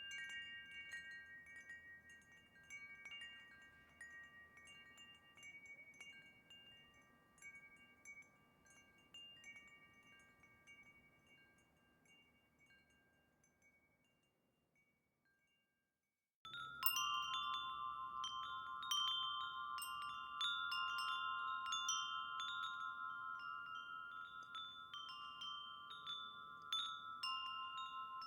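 Wind chimes ringing with scattered strikes, growing sparser and fading away to silence. About two-thirds of the way through, a louder, differently pitched set of chimes starts abruptly and rings with frequent overlapping strikes.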